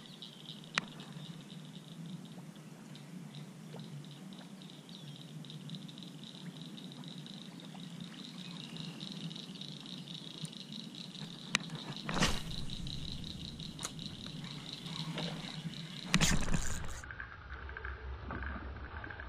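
Wetland ambience: a steady high-pitched trilling chorus of calling frogs and insects, with a low hum beneath. A few sharp clicks, and a louder scuffing noise about a second long near the end.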